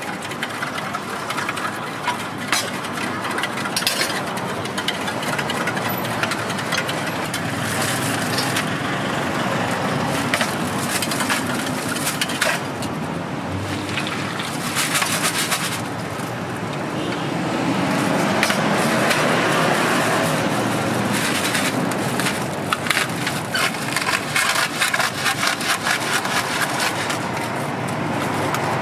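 Stainless-steel cups and spoons clinking, and ice cubes cracking and shifting in a plastic bag as iced coffee is poured and the bag handled, with dense plastic crinkling near the end as the bag is tied. Steady street traffic noise runs underneath.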